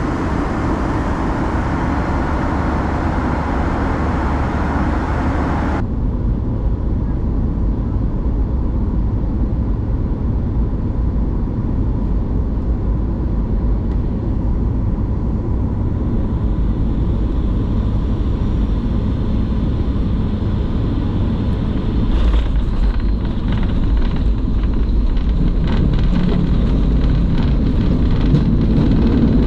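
Steady low rumble of an airliner. The tone changes abruptly about six seconds in, and the rumble grows slightly louder with faint rattling in the last quarter.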